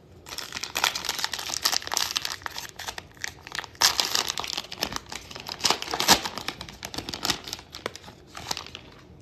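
Plastic cello wrapper of a Panini Absolute football card pack being torn open and crinkled by hand: a dense run of crackles, with sharper tears about four and six seconds in.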